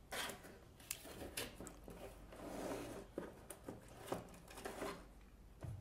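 Hands handling the parts and packaging of a toy remote control car kit: irregular light plastic clicks and taps, with a short stretch of rustling about halfway through.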